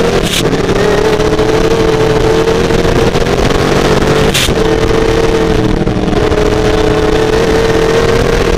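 Twin-turbocharged 440-cubic-inch alcohol-fuelled Chevy race engine running hard at a nearly steady high pitch, heard from a camera mounted on the open-wheel car at speed. Two brief sharp bursts cut through, about four seconds apart.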